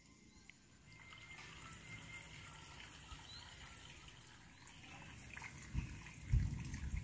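Faint trickling of water in a rice-paddy irrigation channel. Near the end come a few loud low thumps.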